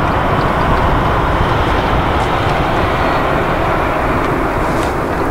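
Steady jet engine noise from an airliner on the airfield after landing, easing slightly near the end.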